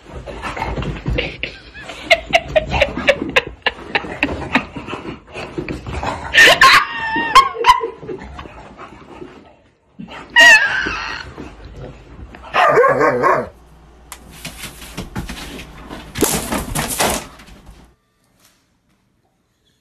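A dog barking and yelping in bursts, with scuffling knocks in between.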